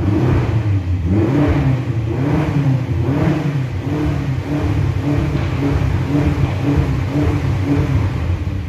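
BMW X6 M's 4.4-litre twin-turbo V8, stock exhaust, warmed up and revved in neutral from inside the cabin: it jumps up suddenly and is held near 4,000 rpm, its pitch wavering up and down a little more than once a second.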